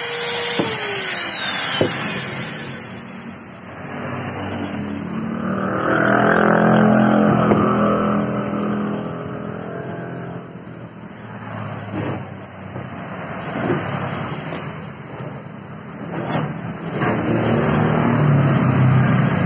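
An angle grinder winds down after being switched off, its whine falling in pitch over the first two seconds. Then a motor vehicle's engine swells and fades twice, through the middle and again near the end, with a few light knocks of steel bars being handled in between.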